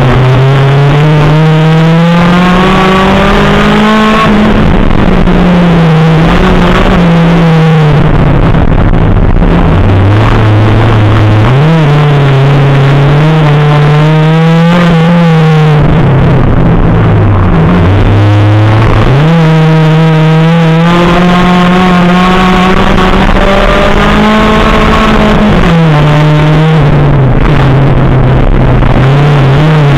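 Rallycross car's engine heard from inside the car, loud, revving hard and climbing in pitch then dropping back repeatedly as it shifts gear and lifts for corners, over a steady rush of tyre and gravel noise.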